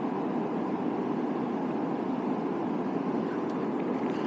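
The Snake River, running high, rushes steadily past the bank in an even, unbroken roar.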